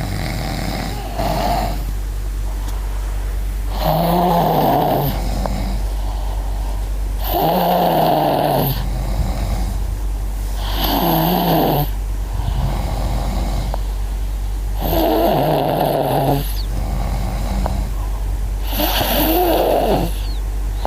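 A father and his young child snoring in their sleep: five loud, rasping snores, each about a second long, come every three to four seconds, with a steady low hum underneath.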